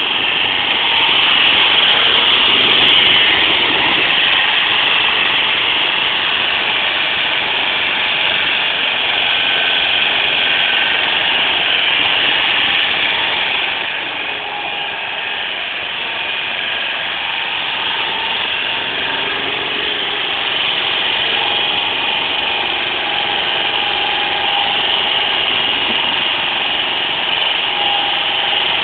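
Truck-mounted forklift's engine running steadily as the forklift drives and works at the trailer, a little quieter for a while about halfway through.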